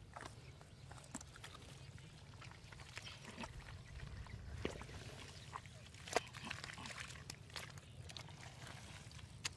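Irregular wet squelches, slaps and clicks of hands digging through soft mud, over a steady low rumble, with a sharper smack about six seconds in.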